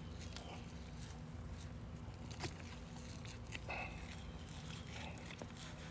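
Faint soft rubbing and a few light taps of gloved hands handling a raw, spice-rubbed leg of lamb on a wooden cutting board, over a steady low hum.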